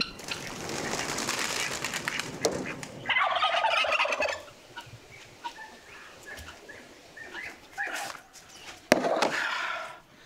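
Farmyard fowl calling: a loud rattling call about three seconds in and another near the end, with short calls between. A rustling hiss runs through the first three seconds.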